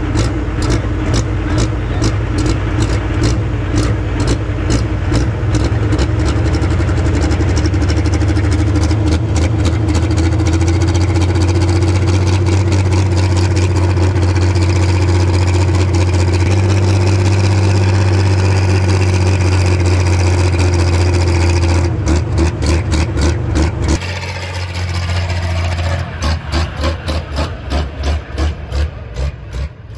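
Pulling tractor's diesel engine running at steady full power for about fifteen seconds, then falling back to a pulsing, uneven rumble near the end.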